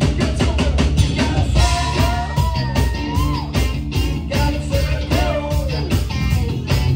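Live funk-rock band playing: electric bass, electric guitar and drums under a sung lead vocal, with some long held notes in the melody.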